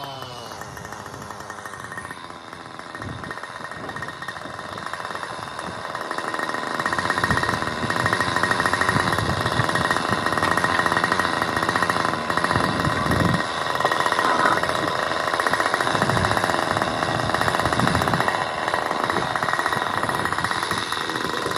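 Engine-driven groundwork machinery running steadily with a fast rattle, getting louder about seven seconds in.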